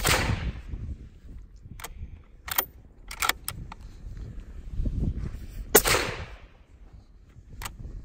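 Two suppressed rifle shots from a .260 Remington fitted with a SilencerCo Omega 300 suppressor, one right at the start and one nearly six seconds later, each a sharp crack with a fading tail, registering about 130 to 133 dB at the shooter's ear. A few short sharp clicks fall between them.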